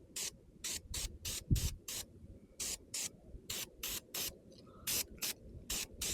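Aerosol spray paint can hissing in short, quick bursts, about two or three a second, as wheel center caps are painted. A single dull thump about one and a half seconds in.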